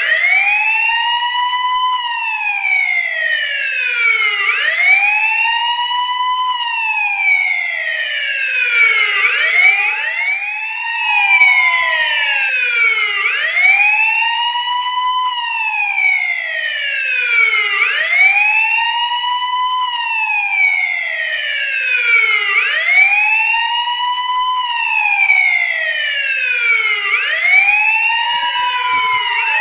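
Police car siren wailing: a slow rise and fall in pitch, repeating about every four and a half seconds.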